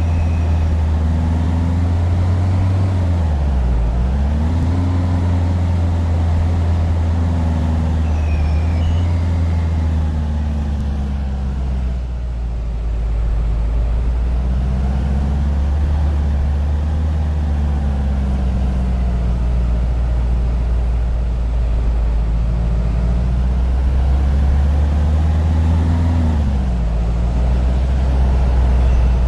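A vehicle running, a steady low drone whose pitch dips and climbs back a few seconds in and again near the end.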